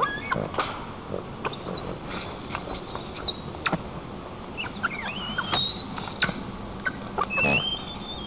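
Juvenile white-tailed eagle squealing while it mantles over a fish it has seized. The calls are thin and high-pitched: a long wavering one about two seconds in, a rising one past the middle and a shorter one near the end, with short clicks between them.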